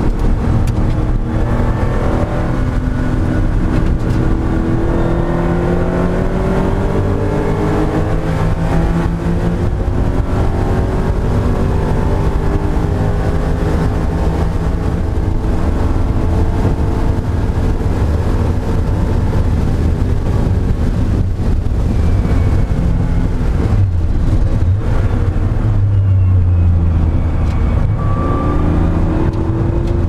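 Porsche 911 SC race car's air-cooled 3.0-litre flat-six under hard acceleration, heard from inside the cabin, the revs rising again and again through the gear changes. About three-quarters through it eases off, then pulls up in pitch again near the end.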